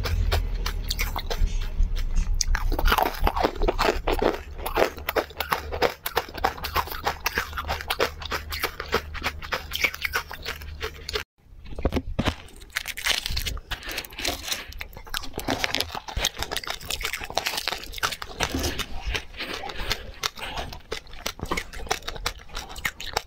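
Close-miked chewing and crunching of candy, in quick irregular crackles, with a low steady drone under the first half. About eleven seconds in there is a brief total dropout, then more crunching.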